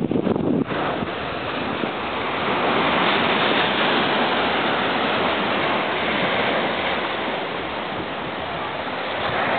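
Sea surf washing onto a sandy beach: a steady rush that swells about three seconds in and again near the end. A brief low rumble comes at the start.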